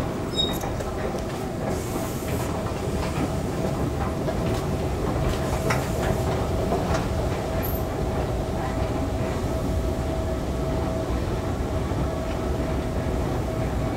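2013 KONE escalator running as it is ridden: a steady mechanical rumble of the moving steps with a constant whine, and a few clicks in the first half.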